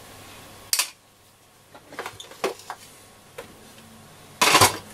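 Scattered clicks, taps and knocks of a screwdriver and hands working inside a wooden radio cabinet, with a louder scraping rustle near the end. A low hum stops with a click just under a second in.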